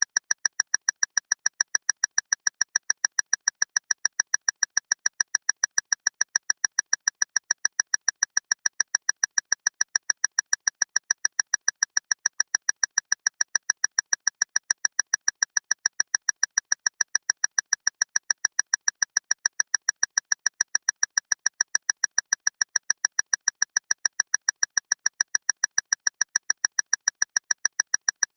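Loud clock ticking fast and perfectly evenly, several sharp, high-pitched ticks a second.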